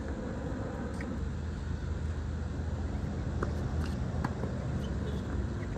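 A few short, sharp pops of a tennis ball struck by rackets in a rally, over a steady low rumble.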